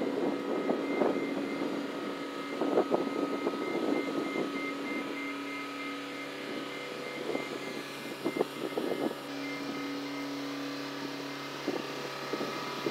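An engine running steadily, with short bursts of rattling every few seconds.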